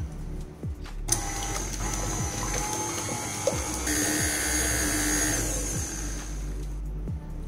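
Electric beater switched on about a second in, its small motor whirring steadily as it beats cake batter, with the liquid being added little by little. It runs until shortly before the end.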